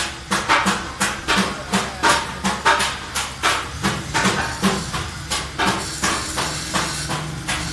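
Hammer blows struck in a steady rhythm, about three a second, each with a short ring; the blows grow lighter in the second half.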